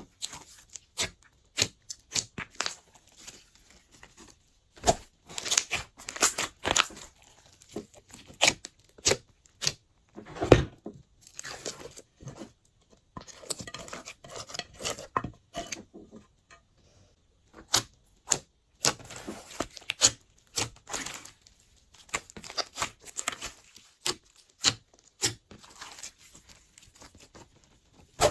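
Glossy slime being mixed and squeezed by hand, giving irregular sticky pops, clicks and crackles with a few short pauses.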